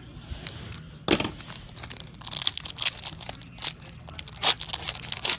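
Plastic wrapping of trading-card packs crinkling and tearing as the packs are handled and ripped open, in a run of sharp irregular crackles starting about a second in.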